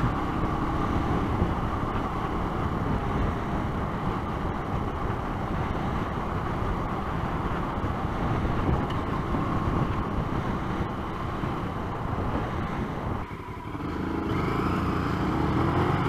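Motorcycle running on the road, heard from the rider's helmet with steady engine and wind noise; about 13 seconds in it eases off briefly, then the engine pitch rises as it accelerates again.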